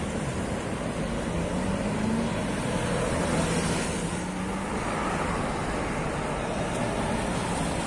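Steady road traffic noise from a stream of cars and SUVs driving past, with the low hum of their engines rising slightly about two seconds in.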